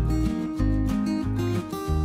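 Background music: a strummed acoustic guitar over a steady, repeating bass line.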